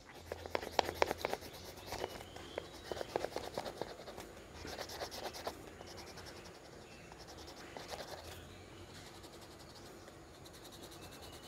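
Pastel stick scratching and rubbing on paper in clusters of quick back-and-forth colouring strokes, stronger in the first half and fainter later.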